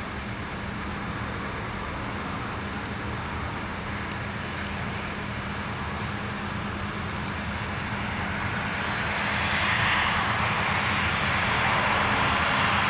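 Jet engine noise from a Boeing 737-800's CFM56-7B engines as the airliner rolls out along the runway after landing. It is a steady engine sound that grows louder about nine seconds in.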